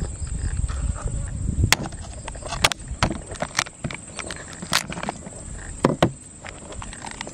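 Cooked mud crab being cracked apart by hand and cut with a cleaver on a wooden board: a string of sharp, irregular cracks and knocks of shell and blade, about eight in all.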